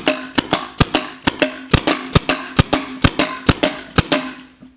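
Two Tippmann TPX CO2 paintball pistols fired in rapid succession, about four or five sharp cracks a second, stopping just before the end.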